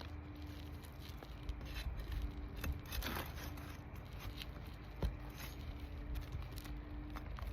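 Asphalt roof shingles and hip caps being worked loose: scattered scrapes and small clicks, a longer scrape about three seconds in and a sharp click about five seconds in, over a steady low rumble.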